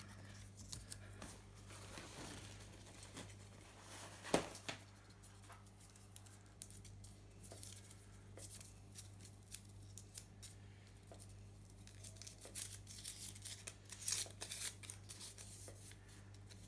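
Paper name slips rustling and crinkling as hands rummage in a bag and unfold a slip: soft scattered rustles and small clicks, busier near the end.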